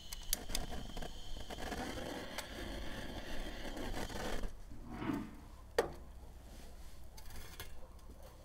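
Butane blowtorch hissing steadily for about four seconds, then cut off, followed by a low knock and a sharp metal click.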